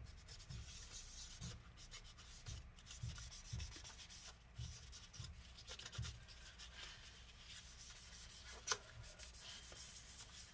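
Paper towel wet with rubbing alcohol scrubbing leftover battery adhesive off the inside of a MacBook Pro's battery bay, in faint, irregular rubbing strokes. One short tap about three-quarters of the way through.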